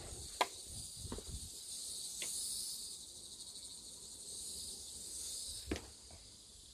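High-pitched insect chorus buzzing, swelling and fading in waves, with a few scattered footsteps.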